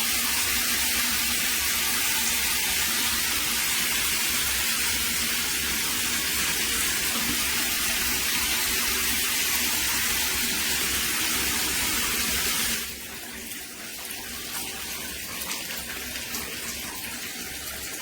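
Shower spray from a rainfall shower column running steadily onto a surface, a hiss of falling water that drops noticeably quieter about two-thirds of the way through.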